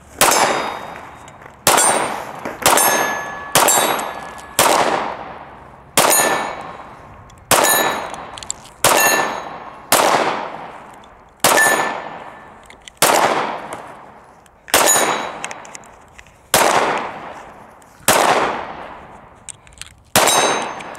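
Smith & Wesson M&P9 M2.0 9mm pistol fired in slow, steady single shots, about fifteen, one every second or so. Each shot is followed by a metallic ring that fades over a second or more.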